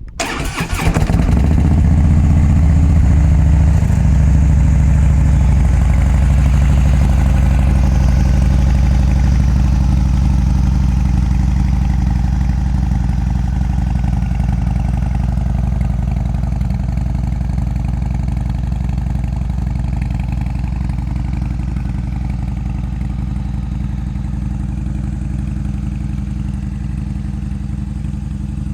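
Harley-Davidson Dyna Fat Bob's Twin Cam 103 V-twin, through Vance & Hines slip-on silencers, catching on start-up and running at a fast idle, then settling about four seconds in into a steady, loping idle.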